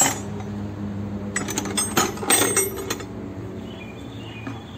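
Steel T-handle wrenches clinking against each other and against a plastic jug as they are slotted into its holders: several sharp metallic clinks, most in the first three seconds.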